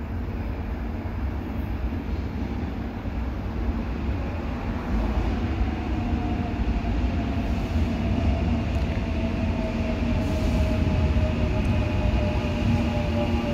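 Korail Line 3 electric subway train pulling into the station: the rumble of the train on the rails grows louder from about five seconds in, with a whine that slowly falls in pitch as it slows.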